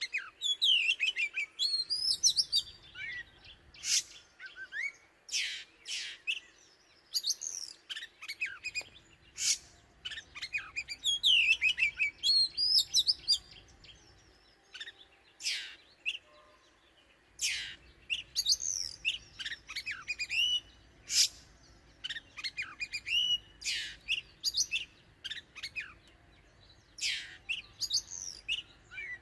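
Oriental magpie-robin singing: sharp, high whistled notes, many sweeping down in pitch, mixed with quick warbling phrases, repeated in bursts with short pauses.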